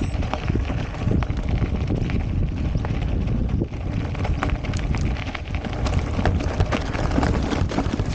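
Mountain bike rolling fast over a dirt and gravel trail: steady tyre rumble with frequent sharp clicks and rattles from stones and the bike, and wind on the microphone.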